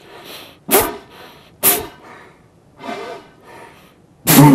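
Didgeridoo blown by a first-time player in short sputtering puffs: four brief blasts about a second apart. The last and loudest, near the end, catches a low buzzing tone.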